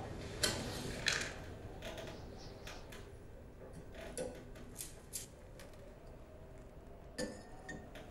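Quiet clicks and small taps as an oil lamp is lit by hand with a match, then a glass clink with a brief ring about seven seconds in as the lamp's glass chimney is handled.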